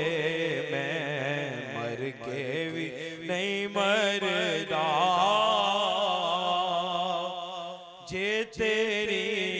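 Male naat reciter singing a Punjabi naat unaccompanied, drawing out long, ornamented vocal lines over a steady low drone, with a brief break about eight seconds in.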